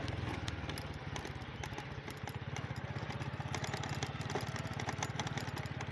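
A small engine running steadily, a low rapid putter that does not change pace.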